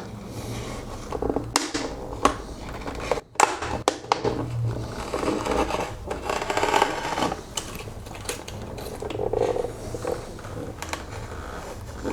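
A PET plastic bottle being cut into a long strip on a Swiss Army knife blade: the plastic scrapes and crackles as the strip is pulled through, with scattered sharp clicks.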